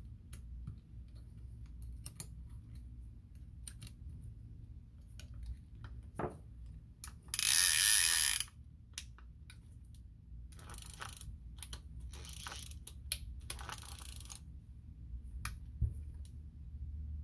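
Penn 113 fishing reel being handled and turned: scattered small metallic clicks and knocks, then a loud run of rapid ratcheting clicks lasting about a second, followed by several shorter, fainter runs of clicking.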